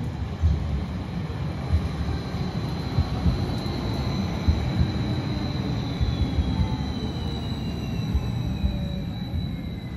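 Red Bombardier Flexity Outlook low-floor tram passing close by on street track: a rumble of wheels on the rails with irregular low knocks, over a steady high whine. A second whine slides down in pitch as the tram moves away.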